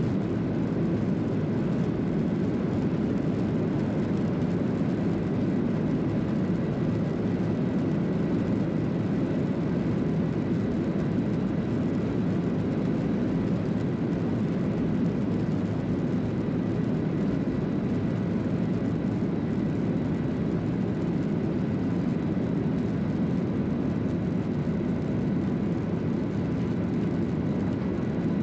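Boeing 737-800's CFM56-7B turbofan engines at takeoff thrust, heard from inside the cabin over the wing: a steady, even noise with a faint high whine through the takeoff roll and liftoff.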